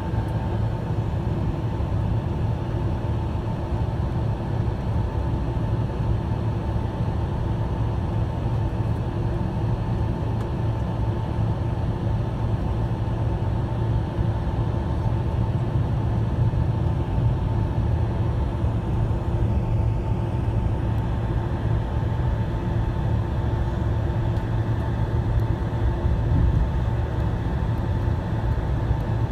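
Boeing 767-300ER cabin during taxi: a steady low rumble from the jet engines at taxi power, with a constant hum running through it.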